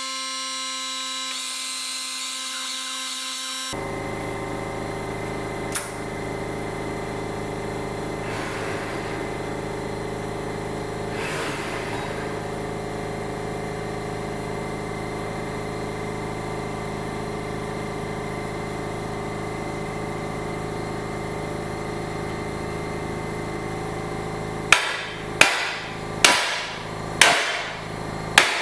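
A plasma cutting rig runs with a steady mechanical drone and hum. Near the end, a run of sharp hammer blows on metal begins, about one a second.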